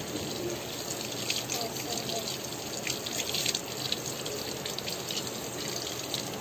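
Water running steadily from a bathroom tap into a washbasin, splashing unevenly as two children rinse soapy hands under the stream.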